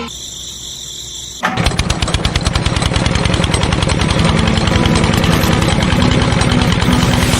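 Small engine of a miniature tractor running with a fast, even chatter of firing pulses, cutting in suddenly about a second and a half in.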